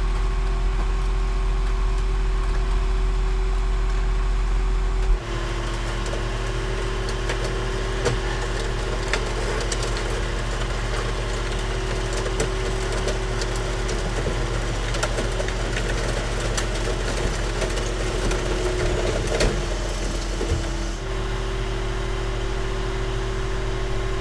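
Car crusher running with a steady engine drone that changes pitch and goes under load about five seconds in as the lid presses down on an SUV. Sharp cracks and pops of the metal body and glass breaking run through the middle of the crush. Near the end the load eases and the drone settles back.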